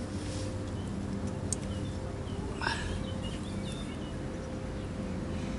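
Outdoor ambience: small birds chirping now and then over a steady low rumble, with one sharp click about one and a half seconds in and a brief rising call just under three seconds in.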